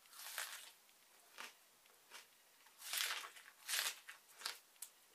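A mouthful of raw onion being chewed: about seven irregular, crunchy, hissy mouth noises, the loudest two near the middle.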